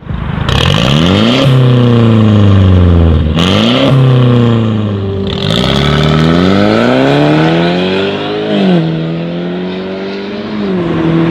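Mercedes-Benz E200 with a valvetronic cat-back exhaust and catless downpipe, accelerating hard. The exhaust note climbs and drops sharply several times as the revs rise and fall.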